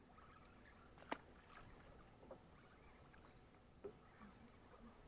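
Near silence: faint water and open-air noise on a boat at sea, broken by a sharp click about a second in and a couple of softer knocks later.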